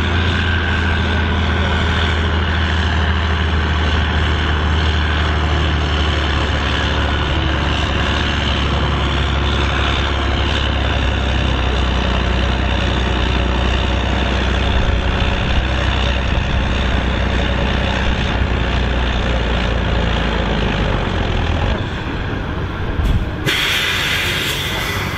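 Massey Ferguson 8130 tractor's diesel engine working hard under full load, a steady deep drone as it drags the weighted pulling sled. Near the end the engine note drops away and a loud hiss follows.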